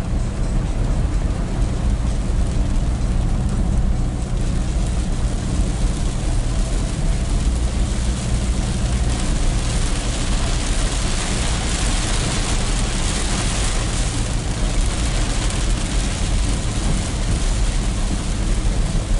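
Heard from inside a vehicle's cabin while driving in rain: a steady low engine and road rumble under the hiss of rain on the windshield and roof. The rain and tyre-spray hiss grows louder about halfway through, then eases.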